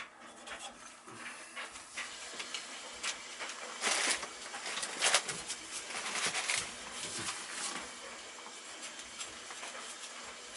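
Hand and screwdriver work inside a gas furnace cabinet around the exhaust fan assembly: scattered clicks, taps and rustles, with louder scraping bursts about four seconds in and again from five to six and a half seconds.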